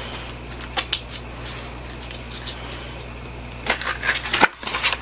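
Hands sliding a leather-covered palette case out of a cardboard sleeve: scattered light scrapes and clicks, then a denser run of scuffs near the end.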